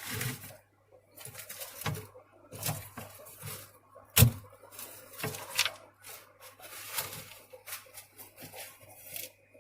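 Hands moving around inside a lizard tank trying to catch a small lizard: irregular rustling, scraping and light knocks, with a sharper knock about four seconds in.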